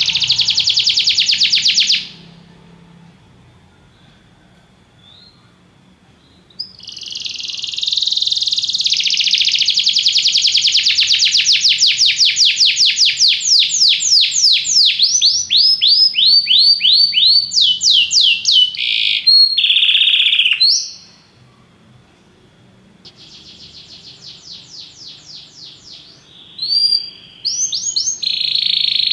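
Domestic canary singing: long phrases of very fast rolling trills and quick sweeping notes. The phrases break off twice for a few seconds, and a softer trill fills part of the second pause.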